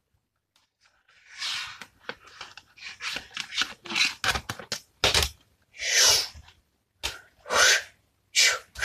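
A voice making dragon noises for the toys: a quick, irregular string of short breathy hisses and huffs, with a longer one about six seconds in.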